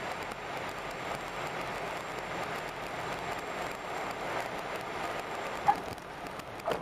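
Steady noise inside the cockpit of a twin Piper PA-23 Geronimo rolling along the runway after touchdown: engines and airflow. Near the end come two short, high chirps, the first the loudest sound.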